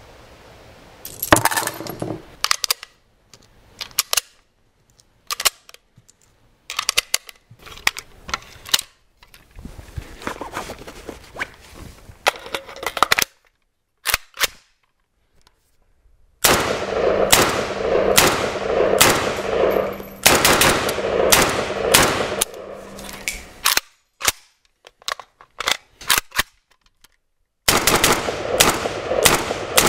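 Romanian Md.65 Kalashnikov (AKMS-pattern) rifle in 7.62×39mm firing: scattered single shots at first, then long rapid strings of shots in the middle and again near the end, broken by abrupt silent gaps between edited clips.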